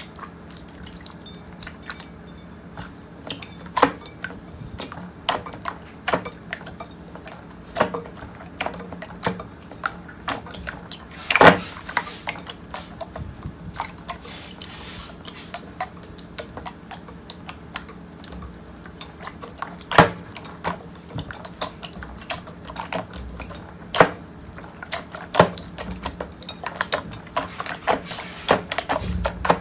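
Slime being worked by hand, giving a long run of irregular crisp clicks and crackles of the kind crunchy slime makes.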